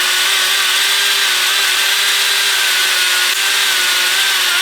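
Electric drill running at a steady high speed, its bit bearing on a drill bit snapped off in a corroded bolt hole without cutting it free. The whine holds one pitch throughout and stops just after the end.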